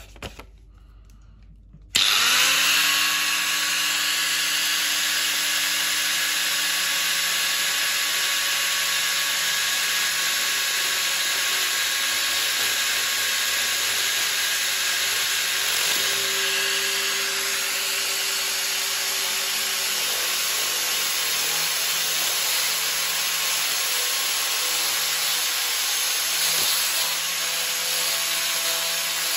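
Angle grinder fitted with a paper disc, switched on about two seconds in: the motor spins up with a rising whine and then runs steadily at full speed.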